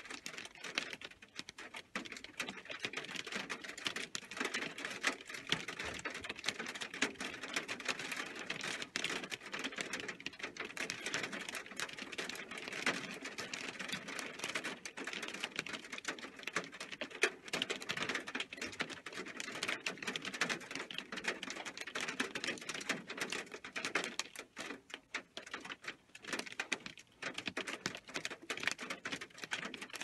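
Heavy rain with hail: a dense, irregular pattering of hailstones striking, many sharp ticks over a steady rush of rain.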